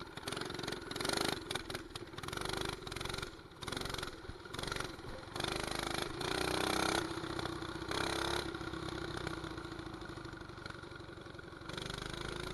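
Mini bike's 212cc single-cylinder four-stroke engine running under throttle as the bike is ridden, its note rising and falling with the throttle. It pulls loudest about halfway through, then holds a steadier speed. Gusts of wind noise hit the handlebar-mounted microphone.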